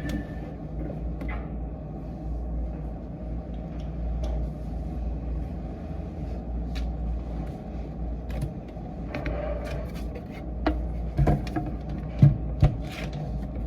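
Desk-work sounds over a steady low room hum: scattered light taps and clicks, with a few louder knocks near the end.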